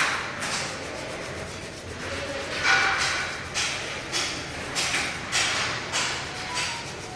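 Paper wiping a steel weld bead clean: a run of short scratchy rubbing strokes, about one to two a second, starting a couple of seconds in.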